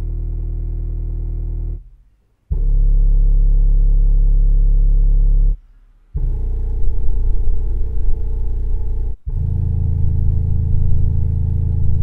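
JBL LSR310S 10-inch studio subwoofer playing full-scale sine test tones, picked up by a microphone in the room: a run of steady deep hums about three seconds each, with brief silences between, stepping down in pitch from 40 Hz to 30 Hz and below. The last two tones waver in loudness.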